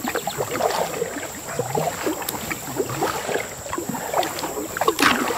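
Canoe being paddled on calm water: soft paddle strokes with water trickling and gurgling off the blade and along the solo canoe's hull.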